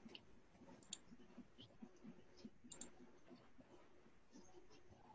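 Faint, irregular computer mouse clicks over near silence.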